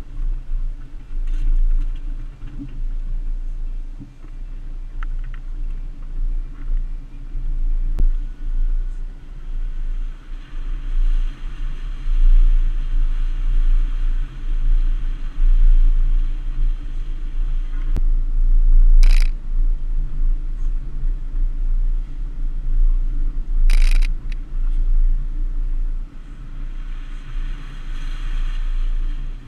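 Jeep Wrangler driving slowly along a muddy off-road trail: a steady, deep engine and drivetrain rumble with tyre noise over mud and ruts. Twice, about five seconds apart in the second half, a brief sharp noise cuts through.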